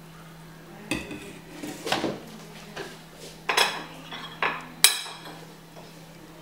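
A metal spoon clinking against a glass bowl and a plate, about five light knocks spread over a few seconds, as chopped boiled egg is spooned into a bowl of porra.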